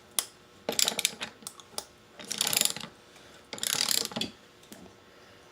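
Socket ratchet wrench ratcheting in two short spells of rapid clicking, after a few sharp tool clicks and knocks near the start.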